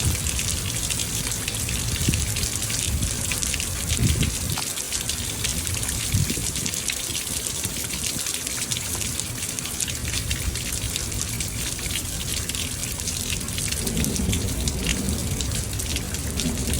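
Steady rain falling, an even hiss of raindrops with many fine drop ticks, over a low rumble.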